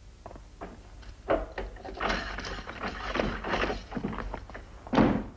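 Keys and lock of a prison cell door being worked: a sharp click, then a couple of seconds of metallic clattering and jangling, and a heavy thud near the end as the door is opened.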